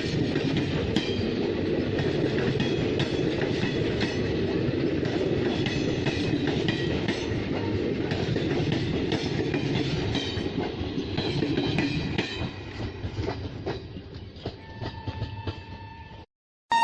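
Passenger train coaches rolling past behind a WAP-5 electric locomotive, a steady rumble with wheels clattering over rail joints and crossover points as the train changes lines, and short high wheel squeals. The clatter fades away over the last few seconds, then cuts off abruptly.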